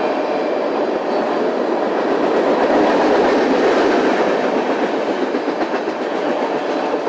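Freight train of tank cars rolling past close by at moderate speed: a steady rumble of steel wheels on the rails, swelling slightly about three seconds in.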